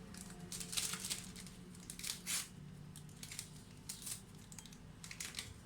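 Baking powder being added to a blender jar: a series of short, irregular rustles and scrapes, like a packet or spoon being handled, over a faint steady low hum.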